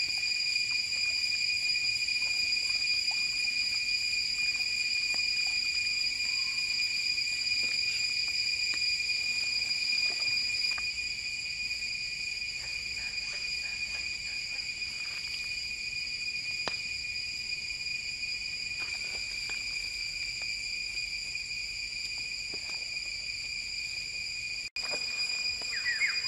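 Steady, high-pitched drone of an insect chorus, with faint scattered clicks. Near the end the sound drops out for an instant, and then a rapid warbling call comes in.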